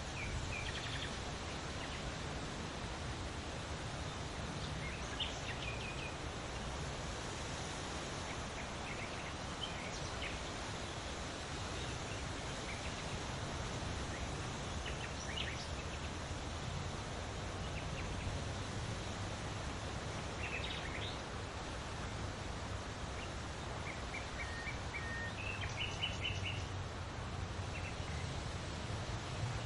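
Steady rustling of large leaves in the wind, with short bird chirps scattered through it and a run of chirps near the end.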